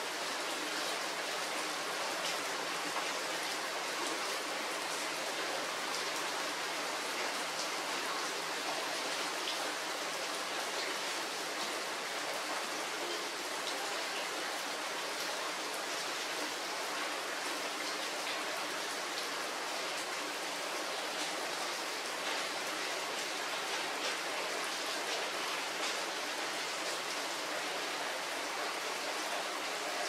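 Steady rain falling: an even hiss with faint scattered drop ticks.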